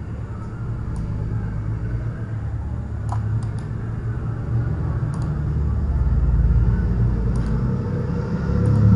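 A steady low rumble that swells about six seconds in and eases off, with a few faint computer mouse clicks as the cursor works a right-click menu.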